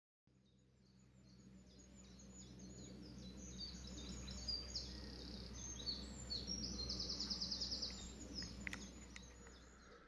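Several songbirds singing in the early-morning dawn chorus, fading in over the first second or two, with a fast, rapidly repeated trill about seven seconds in, over a faint low steady rumble.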